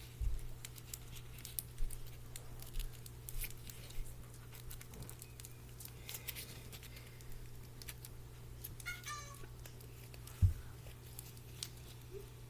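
Hands working wooden craft sticks and tape, making scattered light clicks and taps, with a single loud thump about ten seconds in. A short high pitched cry-like call sounds once, just before the thump.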